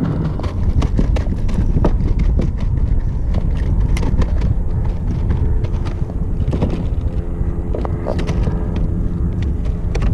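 Heavy low wind rumble on the microphone, with many irregular sharp clicks and knocks from gear being handled on the kayak.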